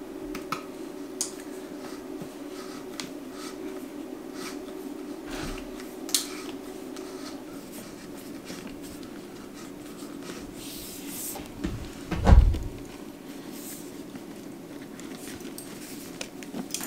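Hand work on electrical cables and light fittings: scattered clicks and light knocks over a steady low hum, with one heavy thump about twelve seconds in.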